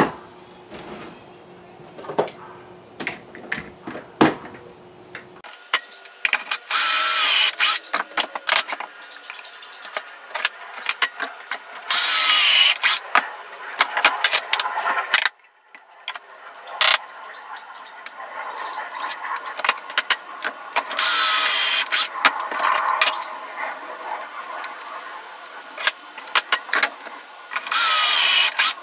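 Cordless drill spinning a stepped pocket-hole bit through a pocket-hole jig into a plywood board, in four runs of about two seconds each, its motor whine rising and falling as the bit cuts. Between the runs come clicks and rattles as the metal jig is repositioned and clamped.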